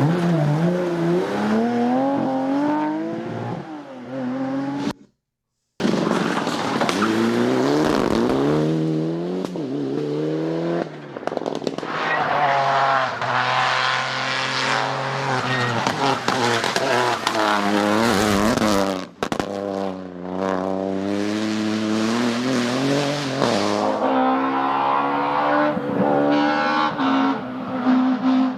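Rally cars at speed, engines revving up and falling back again and again as they shift gears and pass. The sound is cut between several shots: it drops out completely for under a second about five seconds in and changes abruptly again near nineteen seconds.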